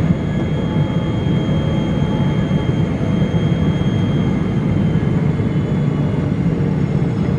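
Cabin noise inside a Boeing 777 on its landing approach: a steady deep rush of engines and airflow, with a few faint high tones that slide slightly lower in the second half.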